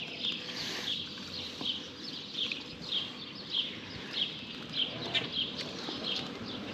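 A bird calling with a short downslurred chirp, repeated steadily about one and a half times a second.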